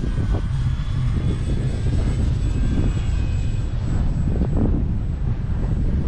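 The electric RC plane's 3536 1200 kV motor and propeller whine faintly in flight, the pitch drifting slightly as the plane moves. A steady low wind rumble on the microphone lies under it.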